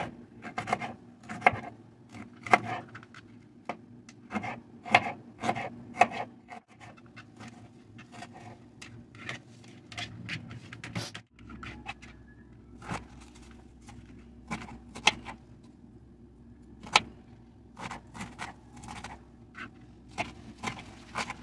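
Kitchen knife chopping bell peppers and onion on a cutting board: irregular sharp taps of the blade on the board, louder and closer together in the first few seconds.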